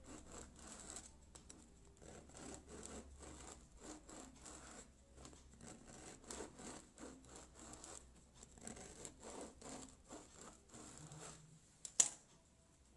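Knife sawing back and forth through a crusty whole-wheat baguette on a wooden cutting board: a faint run of short rasping strokes. About twelve seconds in, one sharp click as the knife is put down on the counter.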